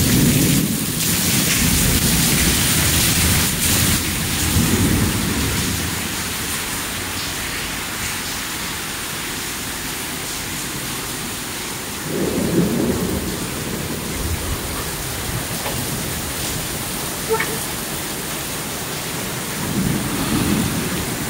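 Heavy thunderstorm downpour: a steady hiss of rain, with low rumbles of thunder swelling and fading a few times.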